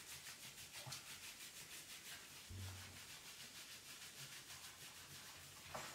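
Hands scrubbing a wet shih tzu's fur, a faint, quick, even rubbing at about six strokes a second.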